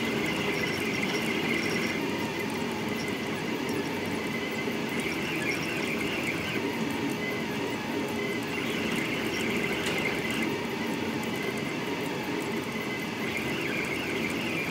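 Delta Rostock 3D printer's stepper motors and moving effector running fast during a high-speed print, a steady mechanical sound whose pitches keep shifting as the head changes direction.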